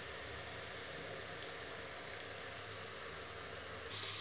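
Onion-tomato masala frying in oil in a wok, a steady soft sizzle, a little louder near the end.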